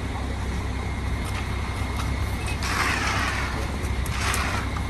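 Diesel engine of a concrete mixer truck running steadily, with a brief loud rushing hiss about three seconds in and a shorter one near the end.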